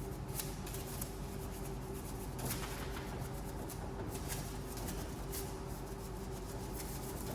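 Brush scrubbing a car wheel: irregular scratchy strokes over a steady low hum.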